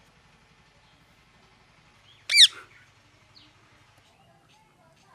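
Pet parrot giving one loud, short call that slides down in pitch about two seconds in, followed by a faint short chirp.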